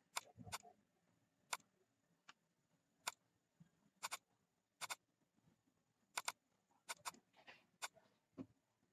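Computer mouse button clicking: about a dozen sharp, separate clicks at an irregular pace, several in quick pairs like double-clicks.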